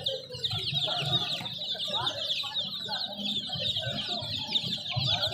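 A brood of baby chicks peeping continuously: many rapid, overlapping high chirps, each dropping in pitch.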